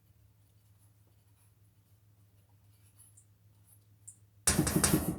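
Faint scattered ticks of kitchen handling, then near the end a loud scratchy rustle lasting under a second.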